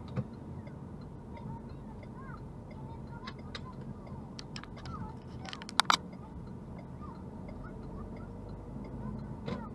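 A car driving slowly, heard from inside the cabin: a steady low rumble of engine and tyres, with faint short chirps scattered through it. Two sharp clicks close together about six seconds in are the loudest sounds.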